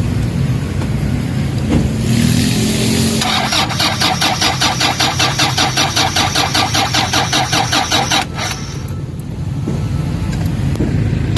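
Starter cranking a Toyota Fortuner's common-rail diesel engine in a slow, even rhythm of about four to five beats a second without it firing. It stops about eight seconds in and starts cranking again near the end. The slow cranking is the sign of a weak battery, too weak for the engine to build fuel pressure in the common rail.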